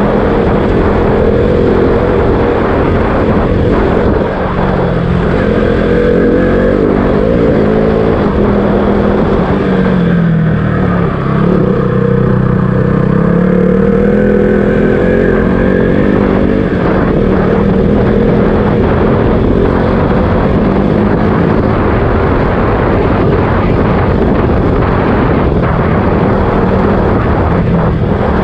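KTM RC 200 single-cylinder motorcycle engine running under way. The engine note drops about ten seconds in, then climbs back up a couple of seconds later as the bike picks up speed again.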